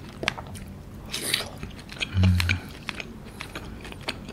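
Close-miked chewing of soft cooked A5 wagyu beef: wet mouth clicks and lip smacks, with a short low closed-mouth hum a little after two seconds in.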